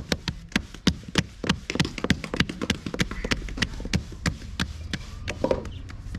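A rapid series of sharp taps or knocks, at first about four a second, then slower and uneven.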